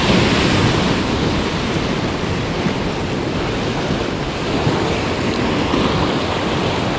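Ocean surf washing against a rocky shore, with wind noise on the microphone: a steady rushing noise.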